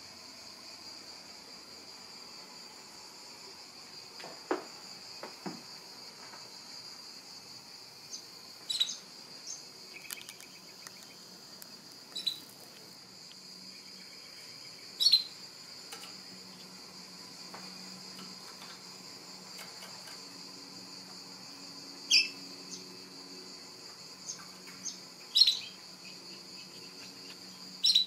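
A canary giving about six short, sharp chirps spaced several seconds apart, over a steady high-pitched whine. Two soft knocks come about four and five seconds in.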